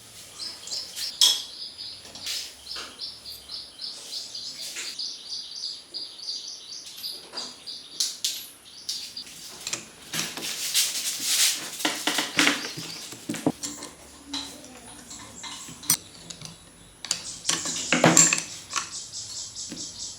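Metal tools and engine parts clinking and knocking in irregular hand work, with runs of fast, even high-pitched ticking and a short hissing stretch about halfway through.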